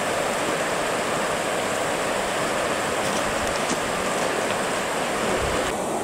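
Whitewater rapids on a mountain river rushing steadily. The rush changes character abruptly near the end.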